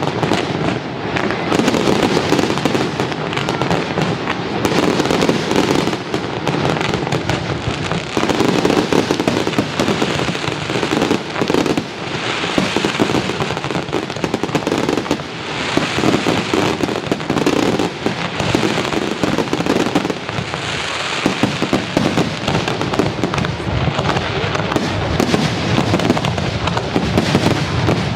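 Fireworks display: a dense, continuous barrage of shell bursts and crackle with no let-up, the bangs overlapping one another.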